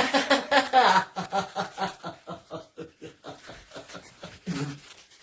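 A person laughing: a long run of quick pulses, about five a second, loudest at the start and tapering off over about four seconds.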